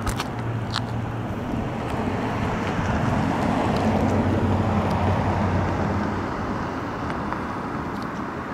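A motor vehicle passing by: engine and tyre noise swell to a peak about four to five seconds in, then fade, over a steady low hum and some wind on the microphone.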